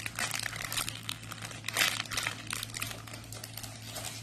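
Plastic packaging crinkling as a squishy is handled, in irregular crackles that are loudest a little under two seconds in.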